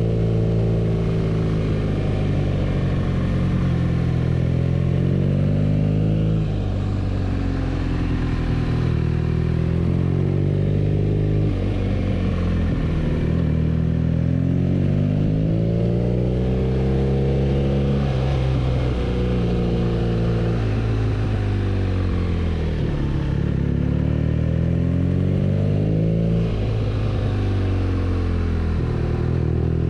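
BMW R nineT's air/oil-cooled boxer twin on the move, its pitch climbing under throttle and then dropping back several times as the rider changes gear and eases off. A steady rush of air runs underneath.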